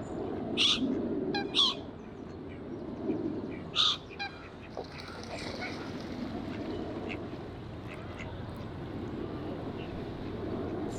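Ducks and other waterbirds calling at a pond while squabbling over food, with three loud squawks in the first four seconds and smaller calls after, over a steady low background noise.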